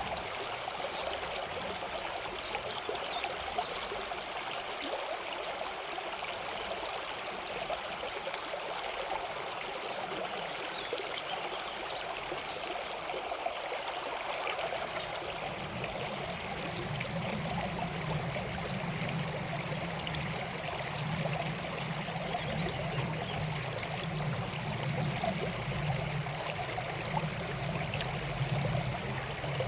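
River water running over rocks: a steady rush and babble. About halfway through, a deeper low rumble joins it and holds.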